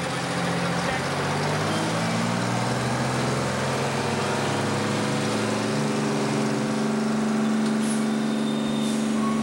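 A fire engine's engine running steadily at the scene, a low, even drone.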